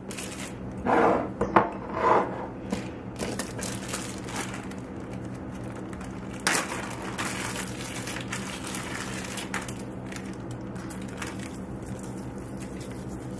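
Plastic zip-top freezer bag being handled and pulled open, crinkling irregularly, with louder crinkles in the first couple of seconds and again about six and a half seconds in. A steady low hum runs underneath.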